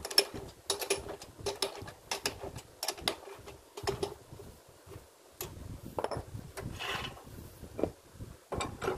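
Metal clicks and rattles of a lathe chuck key turning in the chuck as its jaws are tightened around a bamboo workpiece, in irregular bursts. About seven seconds in there is a longer metal scrape, then a few more knocks near the end.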